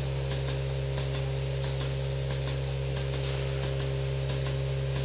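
Milking-parlour vacuum system humming steadily, with the milking-machine pulsators ticking in regular pairs about one and a half times a second.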